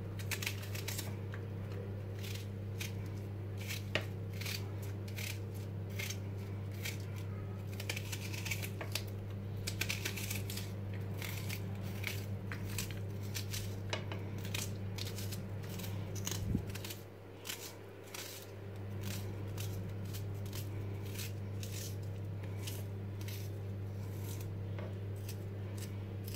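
A knife chopping through a raw onion held in the hand, with crisp irregular clicks several times a second as the blade cuts and pieces drop into an empty pot. A steady low hum lies underneath and drops out briefly about two-thirds of the way through.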